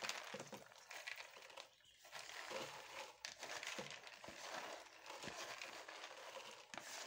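Soaked, drained lentils being scooped by hand from a plastic colander into a plastic sieve: a faint crackly rustle of wet grains with many small clicks, easing off briefly about two seconds in.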